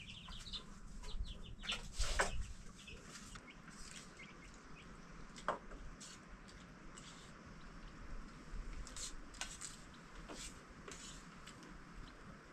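Chickens clucking now and then in short separate calls, the loudest about two seconds in.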